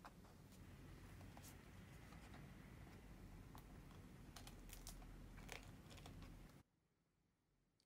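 Near silence: quiet room tone with a scatter of faint small clicks and taps, which stops abruptly about six and a half seconds in.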